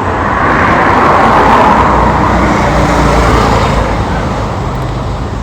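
GMC Denali engine running, revved so its sound swells over the first couple of seconds and then settles back. It runs with no misfire after its disconnected ignition coil wire was refitted.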